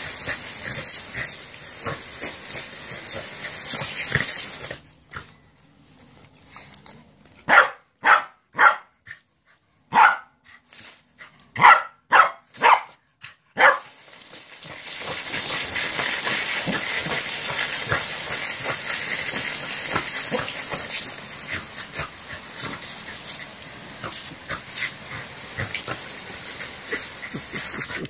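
Corgi barking, a quick run of about eight sharp barks in the middle, between long stretches of steady hiss from a lawn sprinkler's water spray.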